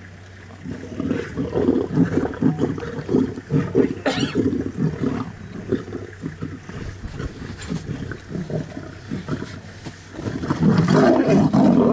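Young lions growling and snarling over a freshly killed warthog, a rough, pulsing low growl that swells into louder snarling about ten seconds in as they snap at each other over the carcass.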